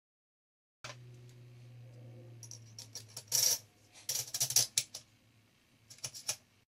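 Small metal rifle parts clicking and clinking as they are handled and fitted together during a folding stock adapter installation, over a steady low hum. The loudest clinks come in two clusters in the middle, with a few lighter clicks near the end.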